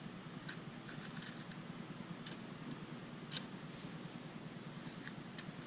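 Faint scraping and light clicks of a pocket-knife blade being drawn through a Victorinox pocket knife sharpener, a handful of strokes roughly a second apart, the sharpest click about three and a half seconds in.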